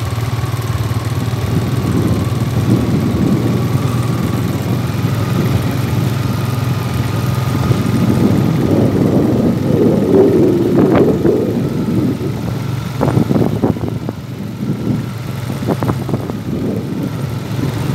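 Quad bike (ATV) engine running at a steady pace while riding. A rougher, uneven noise with irregular knocks joins in from about halfway.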